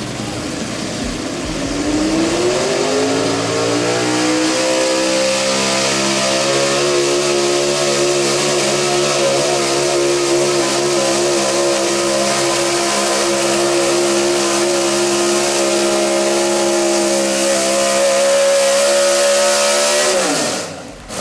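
Gas stock pickup truck's engine at full throttle pulling a weight sled. It revs up over the first few seconds, holds steady at high rpm under load for about fifteen seconds, then drops off sharply near the end as the throttle is let off.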